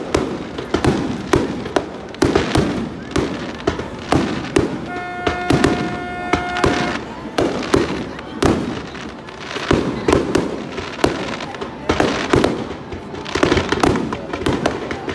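Fireworks display: aerial shells bursting in a rapid, continuous barrage of sharp bangs and crackling.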